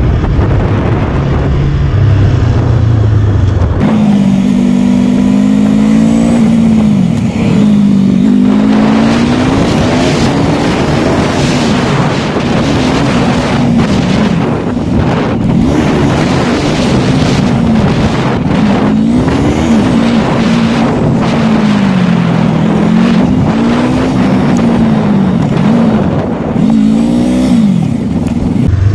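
Motorcycle engine under a rider's camera, with wind noise on the microphone. About four seconds in, the engine note begins rising and falling over and over as the throttle is opened and closed, and it settles back to a steady low drone near the end.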